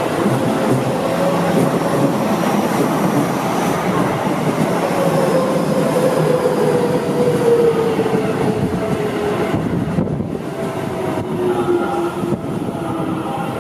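Seibu Ikebukuro Line electric commuter train passing close by at low speed, its wheels running on the rails. About halfway through, a whine slowly falls in pitch, and the sound eases off somewhat near the end.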